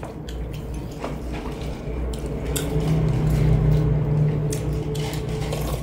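A spoon clicking and scraping now and then in a paper cup of tteokbokki rice cakes, over a steady low hum that swells in the middle.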